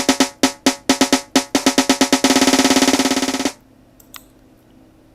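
Programmed snare drum roll played back in FL Studio: single hits, unevenly spaced, come faster and faster and merge about two seconds in into a fast continuous roll that cuts off suddenly about a second later. A few faint clicks follow.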